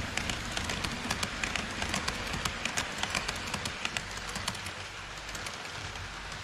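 HO-scale E5 series Shinkansen model rolling past on model track: a rapid, irregular clicking of wheels over rail joints over a steady rushing roll. The clicks thin out after about four and a half seconds as the train moves off.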